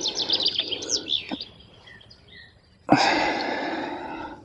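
Small birds singing quick, high chirping phrases through the first second and a half. About three seconds in comes a sudden loud rush of rustling noise that slowly fades away.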